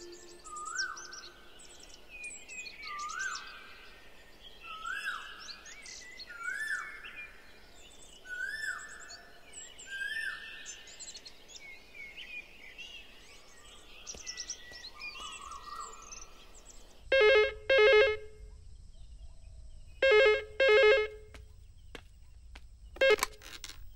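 Birds calling, one repeating a short rising whistle about every second and a half with higher chirps around it. About seventeen seconds in, a telephone rings twice in a double-ring cadence, followed by a couple of sharp clicks near the end.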